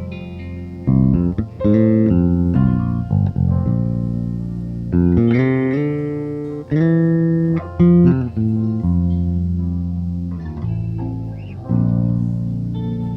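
Electric bass guitar playing long held notes, about one every second or so, within a worship band's music.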